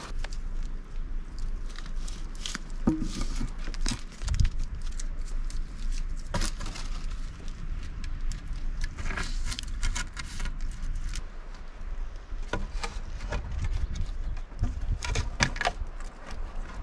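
Dry wooden poles knocking and clattering against each other and the log frame as they are laid across a shelter roof: a string of irregular sharp knocks over a low steady rumble.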